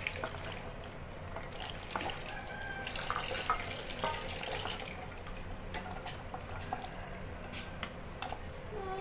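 Peeled garlic cloves and shallots dropped into a glass blender jar: scattered light taps and clicks against the glass, over a faint steady hum.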